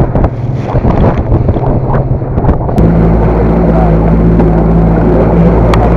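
Boat running at speed through chop: wind buffeting the microphone and the hull knocking and splashing through waves. About three seconds in this gives way to the steady drone of the outboard motor running at speed over the wake.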